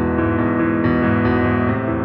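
Instrumental background music: held chords that change every half second or so.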